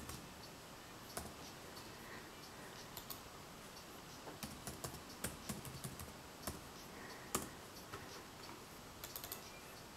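Faint, irregular computer keyboard keystrokes and clicks, with a quick run of them around the middle and another short run near the end.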